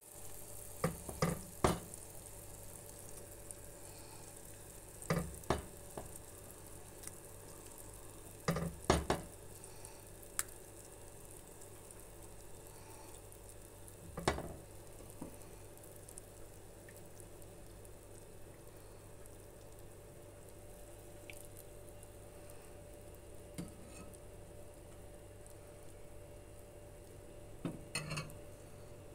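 A plastic ladle scooping thick lentil-and-rice soup from a pot into a porcelain bowl, with short clusters of knocks and scrapes against the pot and bowl rims over a low steady hum. Another cluster of clinks comes near the end as kashk is spooned on top.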